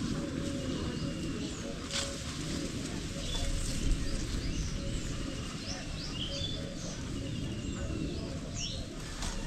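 Small birds chirping with many short quick notes, some sliding up or down, over a steady low background noise.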